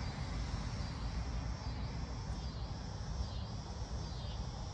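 Outdoor ambience: faint high-pitched insect chirping, repeating every second or so, over a low steady rumble.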